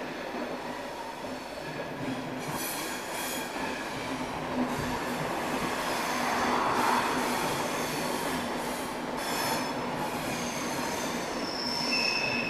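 SBB passenger train pushed by an Re 460 electric locomotive rolling slowly over station points: a steady rumble of wheels on rail with clatter over the switches, and a high-pitched wheel squeal setting in near the end.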